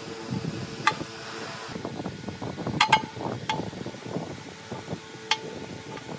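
Metal parts and tools being handled on a workbench: a few sharp metallic clinks, two close together near the middle, each with a brief ring, over low scraping and handling noise.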